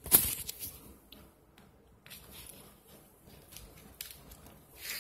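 Ratchet strap webbing being handled and fed into the slot of the ratchet: a brief rasp of the webbing at the start and again near the end, with faint scattered clicks between.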